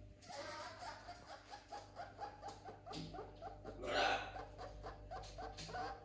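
A small animal whining in a quick, even series of short high chirps, about four a second. A louder brief rustle-like noise comes about four seconds in.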